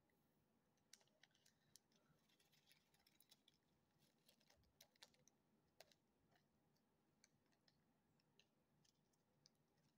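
Faint crinkling and scattered clicks of a small clear plastic packet being handled and opened by hand.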